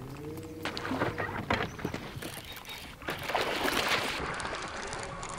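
A predatory fish strikes a topwater lure with a loud splash about three seconds in, after a few smaller splashes and knocks on the water's surface.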